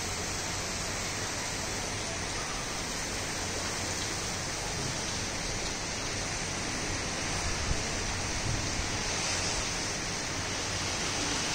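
Heavy monsoon rain falling, a steady dense hiss.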